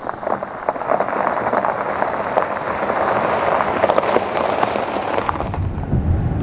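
Tyres of a 2017 Chrysler Pacifica minivan crunching over gravel as it pulls away, a dense crackling. About five and a half seconds in, this gives way to the low rumble of road noise inside the moving van.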